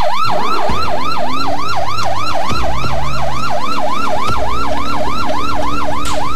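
Electronic police siren in rapid yelp mode, its pitch sweeping up and down about three to four times a second.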